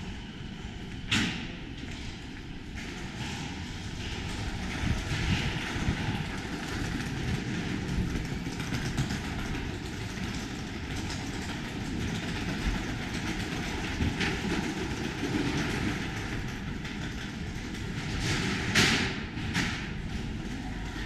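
A train running on the tracks: a steady low rumble, with a short, sharp noisy burst about a second in and a louder one near the end.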